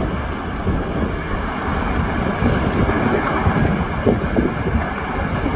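Strong wind buffeting the microphone: a steady, low rumble that swells with the gusts.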